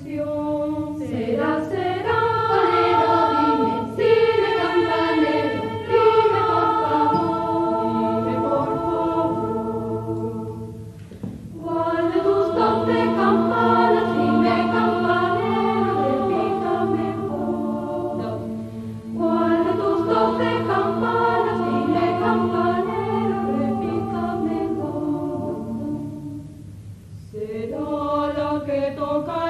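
Mixed choir of children and young adults singing a multi-part song, in long phrases separated by brief pauses about 11 seconds in and near the end.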